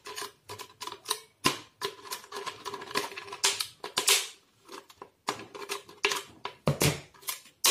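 Scissors snipping through a thin plastic water bottle, with the plastic crackling: an uneven run of crisp snips and clicks, several a second.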